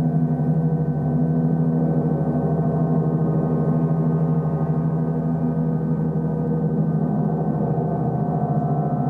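Large gongs played continuously, sounding a sustained, wavering wash of many overlapping deep tones with no single strike standing out: the continuous drone of a gong bath.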